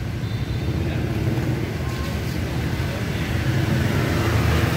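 A motor vehicle engine running on the street with a steady low rumble that grows louder from about three seconds in, as if drawing closer.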